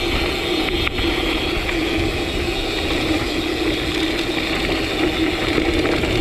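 Gravel bike rolling along a trail, tyres on gravel, with the rear hub's ratchet freewheeling as a steady loud buzz: a DT Swiss 240 hub, known for its loud freehub.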